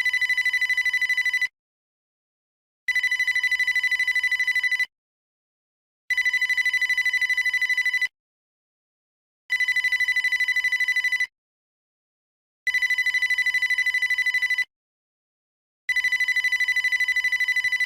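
Old electronic telephone ringer trilling: a high, rapidly fluttering tone in rings of about two seconds, with about a second and a half of silence between them, six rings in all.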